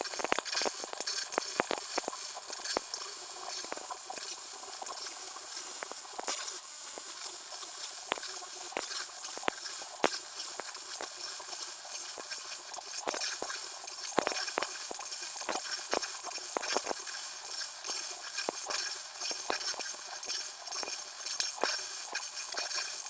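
110-volt MIG wire-feed welder running solid-core wire, laying a bead into the root on top of the bucket shanks: a steady crackling sizzle with frequent sharp pops. It is going onto rusty steel, which typically makes a MIG run rough.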